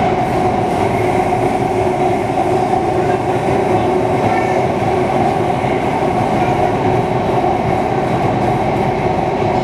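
Singapore MRT Circle Line metro train running through an underground tunnel, heard from inside the carriage: a loud, steady rumble with a constant hum.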